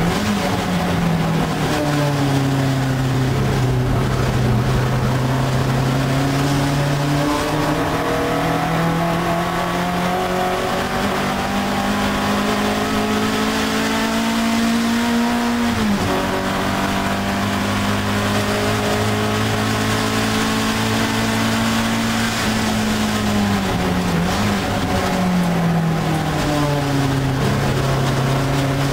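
Alfa Romeo 1750 GTV's twin-cam four-cylinder engine running hard under racing load, heard from inside the cabin. The revs climb slowly over a long stretch, drop sharply once about halfway through, then fall and rise again near the end.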